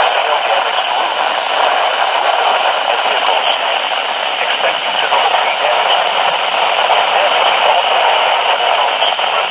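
Loud, steady radio static hiss from a weak broadcast signal, with a faint voice buried in it.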